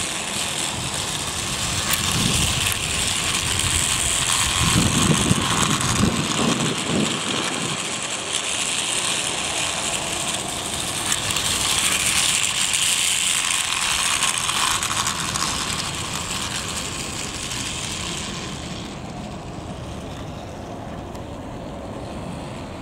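Plarail Shimajiro Express toy train running on plastic track: a steady whirring and clattering of its battery-driven gear motor and wheels, which drops away near the end.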